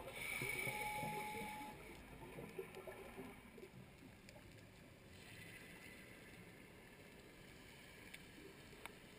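Underwater gurgle of a scuba diver's exhaled air bubbles, heard through a GoPro housing, fading after about two seconds to a faint, steady underwater hiss with a few small clicks.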